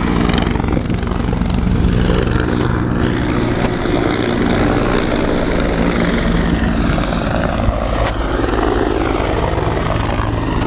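Helicopter circling low overhead: the steady beat of its rotor blades under an engine whine that glides in pitch as it passes around.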